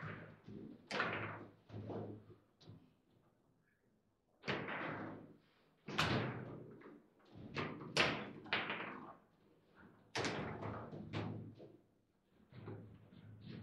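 Foosball table in fast play: clattering knocks and bangs as the ball is struck by the plastic figures and the rods are jerked and slammed. The sound comes in bursts, with a short lull about three seconds in and another near the end.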